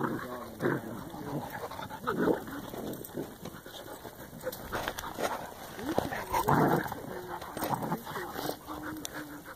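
A German shorthaired pointer puppy and a shepherd-mix dog play-fighting, with repeated short bursts of dog vocalising. The loudest bursts come about two seconds in and again around six to seven seconds in.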